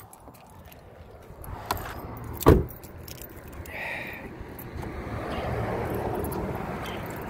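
Driver's door of a 2008 Suzuki Forenza slammed shut about two and a half seconds in, with a small click just before it and keys jangling.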